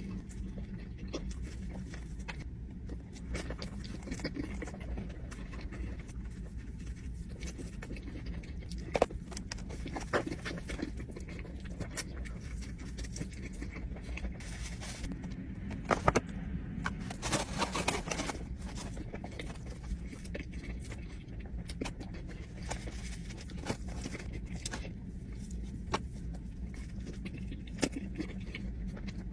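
Spicy chicken sandwiches being handled and eaten: scattered sharp clicks and a paper-like rustle lasting about a second and a half past the middle, over a steady low hum.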